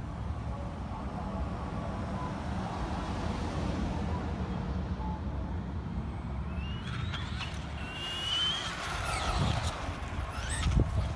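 Radio-controlled scale truck driving on asphalt: a steady low rumble, then from about two-thirds in the high whine of its motor rising and falling in pitch as it speeds up and slows.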